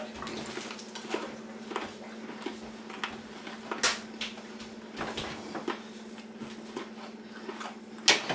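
Scattered small crunches and clicks of someone chewing hard, spicy peanut brittle, over a steady hum.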